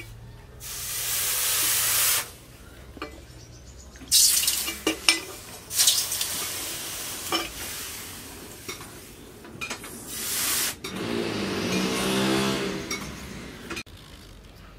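Hot steel cleaver blade, cut from a tractor disc, quenched in a trough of water: several loud sizzling hisses as it is dipped again and again, the longest near the end, with clinks of metal between them. This is the hardening quench of the blade.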